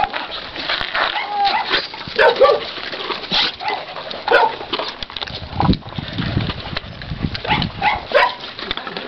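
Dogs barking in short, irregular calls, with a dull thump a little past halfway.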